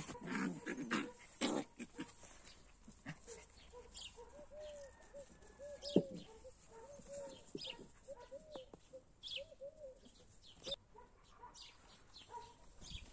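Puppies play-fighting, giving a string of short, soft whimpers and yips, with a single sharp tap about six seconds in.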